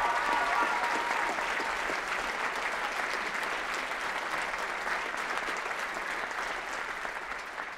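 Theatre audience applauding, a dense even patter of many hands that slowly dies away.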